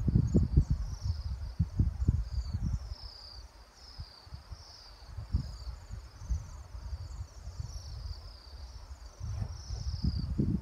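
A flock of small birds chirping, many short, high, falling calls in quick succession. Wind rumbles on the microphone in gusts, loudest at the start and again near the end.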